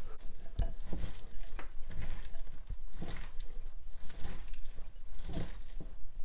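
A gloved hand tossing and squeezing dressed wood ear mushroom salad in a ceramic bowl: irregular wet squelching and rustling of the slippery mushrooms, onion and carrot strands.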